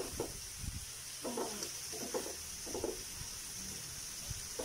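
Shrimp sizzling in butter in a frying pan, a steady hiss, with a few soft scrapes of metal tongs against the pan as they are stirred.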